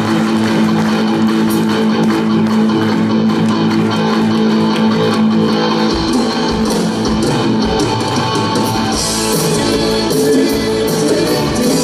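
Live rock band playing a song's instrumental intro, led by guitars over a held chord. Bass and drums come in about halfway through, with cymbals joining near the end.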